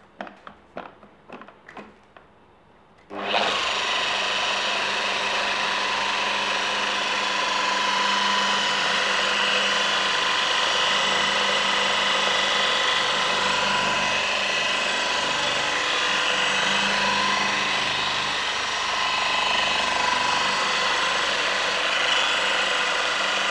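Flex XFE 7-15 150 gear-driven random orbital polisher starting up about three seconds in, then running steadily with a whine as its foam pad works over a car's painted panel. A few faint clicks come before it starts.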